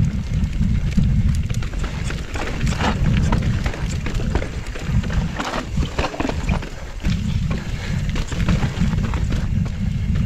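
Mountain bike riding down a rough, rocky trail: a heavy low rumble of tyres and wind, with frequent clatters and knocks from tyres striking rock and the bike rattling. The rumble eases briefly around the middle.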